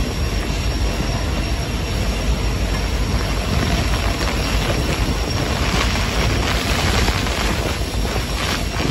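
Heavy thunderstorm rain and strong gusting wind, the wind buffeting the microphone with a steady low rumble. The hiss of the downpour grows stronger after about five seconds as the rain thickens.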